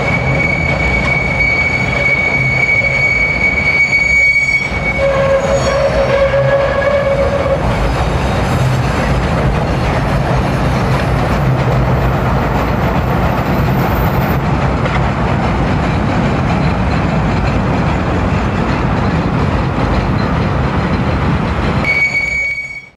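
Chicago "L" rapid-transit train running on the elevated track, a steady rumble of wheels on rail. Its wheels squeal in a steady high tone for the first four seconds or so and again near the end, with a lower squeal from about five to seven seconds in.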